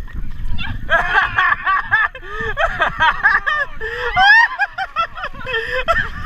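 Several people laughing and squealing in quick, high-pitched bursts, with a rising shriek about four seconds in, over a low rumbling noise.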